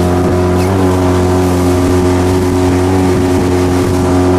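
Outboard motor running steadily at constant speed, driving an inflatable PVC boat across the water.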